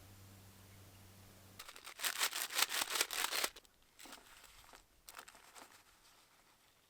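Crinkly material, like a plastic or foil package, being handled and torn open in a burst of about two seconds, followed by two shorter rustles. A faint low hum stops just before it starts.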